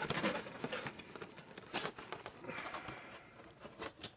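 Cardboard kit boxes being handled: a parts box lifted out of a larger box and turned over, with scattered light taps, scrapes and rustles of cardboard.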